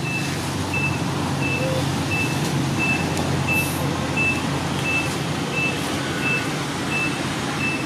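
Vehicle reversing alarm beeping steadily, one short high beep about every two-thirds of a second, over a steady low engine rumble and background noise.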